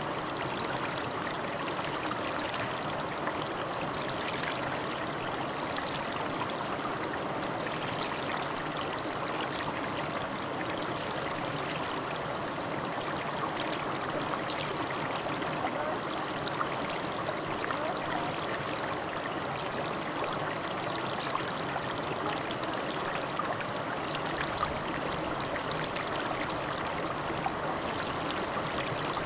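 Steady, unbroken rushing noise, even like running water.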